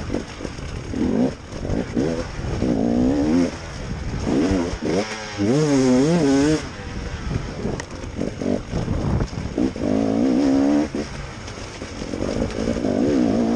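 KTM enduro motorcycle engine revving up and down in quick surges as the rider works the throttle, its pitch rising and falling again and again. About halfway through it warbles rapidly up and down.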